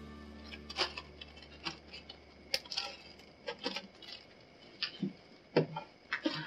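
Irregular light clicks and crinkles of a plastic zip-top bag being handled and pressed shut, with a few small knocks of objects set down on a table.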